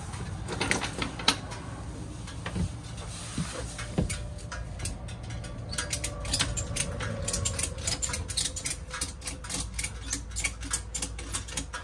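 Ratchet tie-down strap being cranked tight to hold down a side-by-side's wheel: a few scattered clicks, then from about four seconds in a fast, even run of ratchet clicks. A low steady rumble runs underneath.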